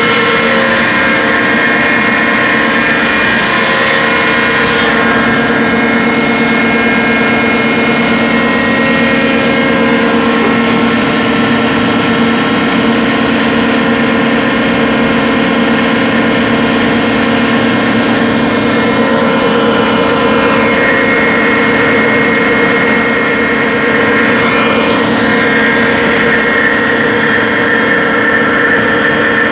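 Underground core drilling rig running: a loud, steady mechanical drone with several steady whining tones that hold throughout.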